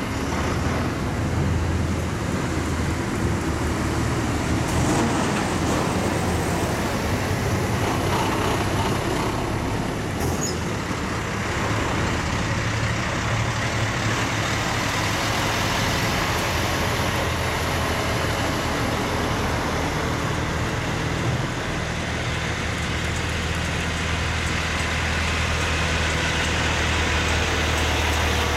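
A convoy of heavy diesel trucks driving past one after another, engines running and tyres on the road, making a steady rumble that doesn't let up.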